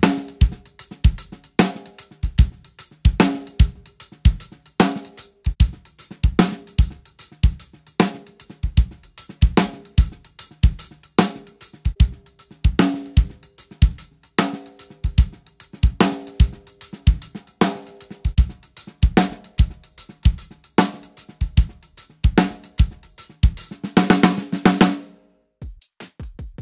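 Drum kit playing a steady beat, with a snare backbeat, bass drum and cymbals, on a snare fitted in turn with four Evans Genera pre-dampened coated heads for comparison. Near the end comes a fast fill, and then the playing stops suddenly.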